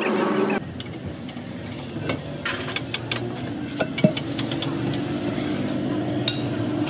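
A steady engine hum with scattered light metal clinks and taps. One sharper metal clank with a brief ring comes about four seconds in.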